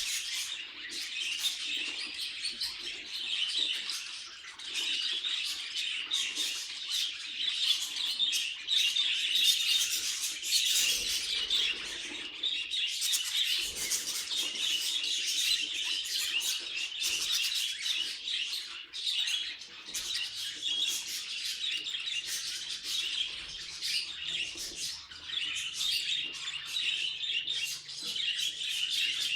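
Budgerigars chattering and chirping continuously, a dense run of quick warbling notes and short calls.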